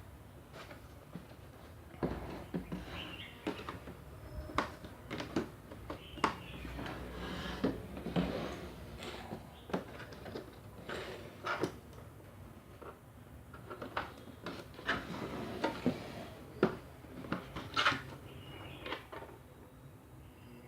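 Boxed power-drill set being handled and unpacked: irregular clicks, knocks and rustling of packaging.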